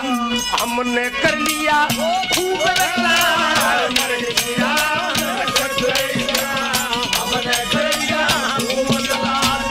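Haryanvi ragni folk ensemble playing: fast, even percussion strokes with a rattling jingle over a steady held drone, and a wavering melody line above.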